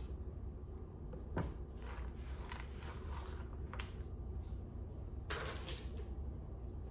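A chef's knife set down with a sharp knock on a wooden cutting board about a second and a half in, then soft scrapes and rustles as hands gather chopped white chocolate off the board, and a short rustling patter near the end as the pieces go into a bowl. A steady low hum runs underneath.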